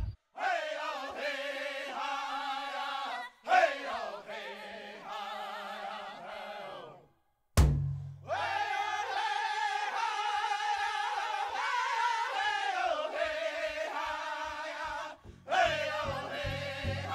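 Background music: a sung melody with long held, wavering notes. It breaks off for a moment about seven seconds in, then goes on with a low beat underneath.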